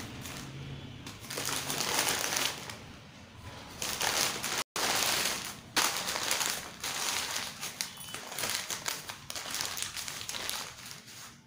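Thin plastic carry bag crinkling as it is handled and crumpled, in repeated irregular bursts.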